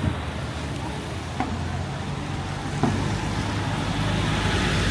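Street traffic: a motor vehicle's engine running with a steady low hum and tyre and road noise that grows louder near the end, with a couple of light knocks.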